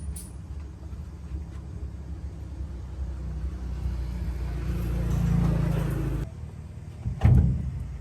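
A low motor rumble with a steady hum that swells, then cuts off suddenly about six seconds in, followed about a second later by a single loud knock.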